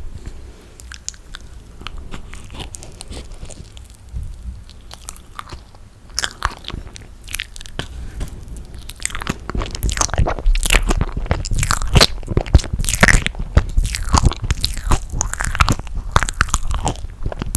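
Close-miked eating of toasted marshmallow: sticky, crackling bites and chewing. The sounds are sparse at first and become much louder and denser about nine seconds in.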